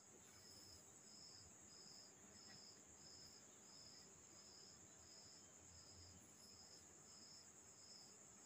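Near silence except faint cricket chirping: a steady high trill with a chirp repeating about twice a second.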